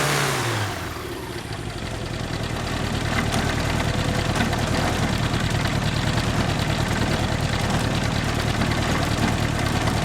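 Yamaha aircraft conversion engine turning a propeller through a hy-vo chain reduction drive, throttled back from high revs. Its pitch drops in the first second, then it settles into a steady idle.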